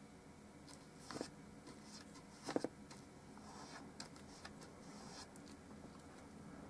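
Faint scratching of a paintbrush laying paint onto a stretched canvas, with two short knocks about a second and two and a half seconds in.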